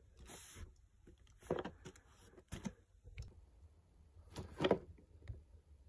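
A cardboard card-game box handled and shifted on a carpet: a few soft knocks and rubbing sounds, the loudest about four and a half seconds in, with a brief crinkly rustle just after the start.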